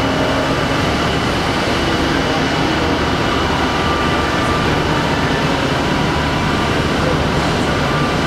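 Steady industrial background noise: a constant hum with a few faint steady tones, unchanging throughout.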